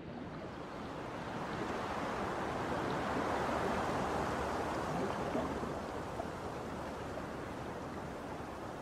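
Steady rushing of flowing water, swelling over the first few seconds and easing slightly toward the end.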